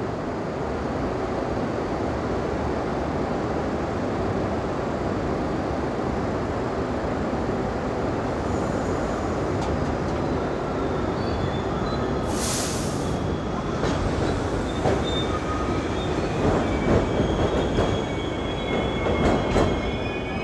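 Subway train running along the track with a steady rumble. Its wheels squeal in thin high tones from about eight seconds in, with a short hiss near the middle and clacking over the rails toward the end.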